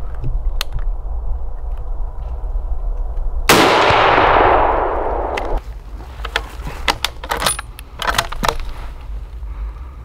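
A single rifle shot about a third of the way in, its report rolling on and fading through the woods for about two seconds before it cuts off abruptly. Scattered sharp clicks and handling noises follow.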